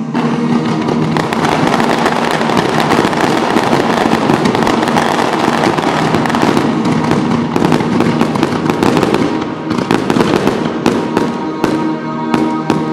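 Fireworks display: a dense, continuous crackling of ground fountains and crackling aerial bursts, thinning to separate sharp bangs over the last few seconds, with music faintly underneath.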